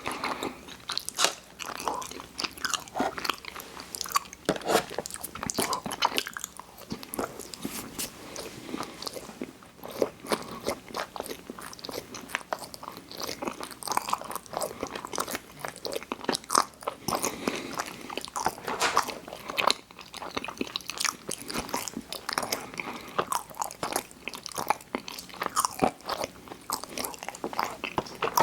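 Close-miked eating: someone biting and chewing snack food, with a steady run of small irregular crunches and mouth clicks.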